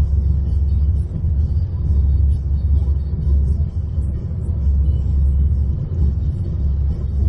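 Low, steady rumble of a car's interior, the engine and road noise heard from inside the cabin.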